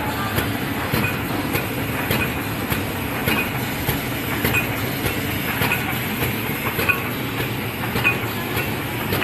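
400A automatic cellophane wrapping machine running, a steady mechanical clatter of clicks and knocks with a cycle that repeats about once a second.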